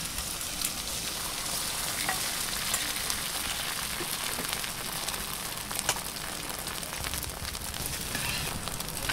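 Egg-and-vegetable mixture frying in oil on a hot flat griddle: a steady sizzling hiss with a few small crackles.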